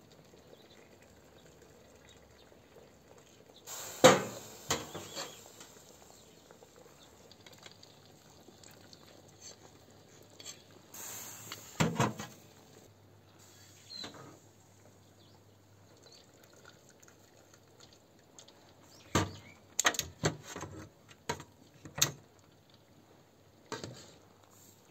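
A metal ladle clinks and knocks against a steel cooking pot and a scalloped metal serving tray as boiled lamb head pieces are lifted from the broth and set down, with some splashing of liquid. A few sharp clatters stand out between quiet stretches: the loudest about four seconds in, another near the middle and a quick cluster near the end.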